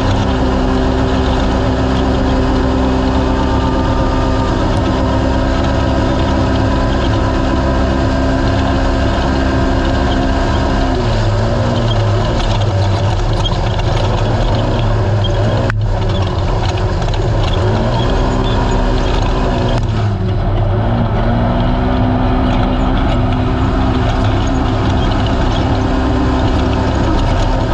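Naturally aspirated racing UTV engine running at steady high revs over a constant rushing noise, heard from on board. In the second half the pitch dips briefly and recovers several times as the throttle is lifted and reapplied.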